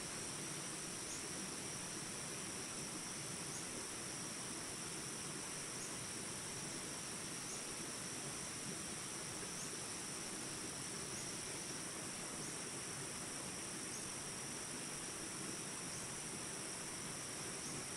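Steady rushing of a stream or falling water, with a continuous high insect trill over it and a faint short chirp about once a second.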